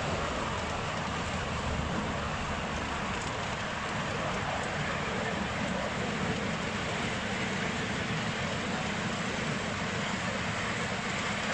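Miniature ride-on train, its locomotive powered by a 1980s ride-on lawn mower engine, running along its track with a long rake of carriages. A steady rumble and clatter of the carriage wheels on the rails does not let up.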